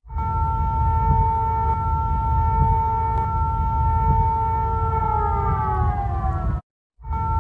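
Emergency Alert System alarm tone played in reverse: a loud steady electronic tone that holds its pitch for several seconds, then slides downward for about two seconds and cuts off. After a short silence it starts again at its steady pitch, over a low rumbling noise.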